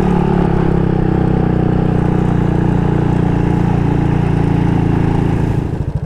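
Honda Wave110i motorcycle's single-cylinder four-stroke engine running steadily at low speed, its sound starting to drop away right at the end.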